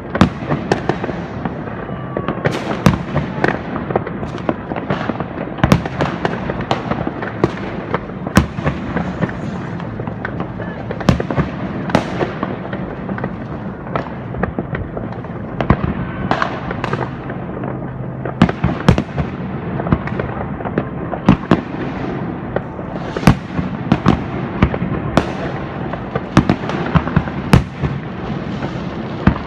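Fireworks and firecrackers going off: a continuous crackle with many sharp bangs at irregular intervals, often more than one a second.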